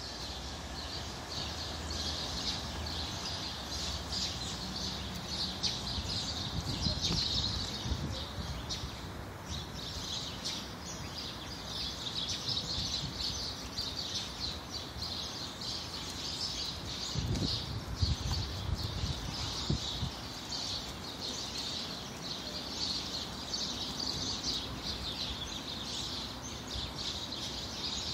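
Many small birds chirping in a dense, continuous chatter, with a few low thumps about two-thirds of the way through.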